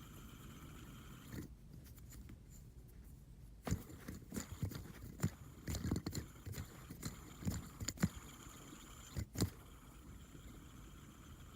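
Fidget spinner being handled and fidgeted by hand: a quick, irregular run of sharp clicks and knocks of metal against metal and fingers, starting a few seconds in and stopping about two seconds before the end.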